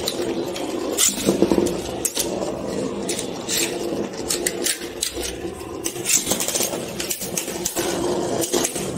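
Metal Beyblade spinning tops whirring as they spin on a plastic chair seat, with frequent sharp clicks and clacks as they knock against each other and the seat.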